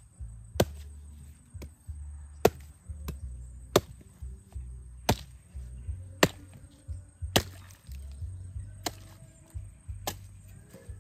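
A blade, likely a bolo, chopping into a coconut husk: a run of sharp chops, roughly one a second.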